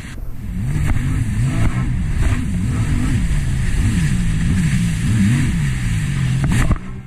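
Sea-Doo Spark Trixx personal watercraft's three-cylinder Rotax engine running hard under way, its pitch rising and falling again and again, with water spray hissing around it. The engine sound drops off abruptly near the end.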